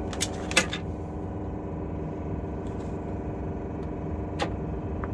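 Diesel engine of a 90 class locomotive running steadily, heard from inside the cab, with sharp clicks near the start and again about four and a half seconds in.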